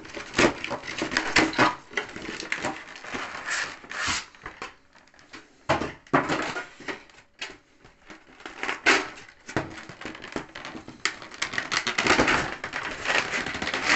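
Clear plastic packaging tray and cardboard box crinkling, crackling and clicking in irregular bursts as they are handled and pulled apart.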